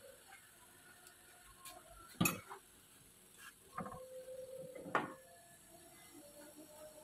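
Kitchen tongs and a spatula knocking and clicking against a tawa griddle while egg is spread inside a paratha: a few sharp knocks, the loudest about two seconds in, and two more around four and five seconds.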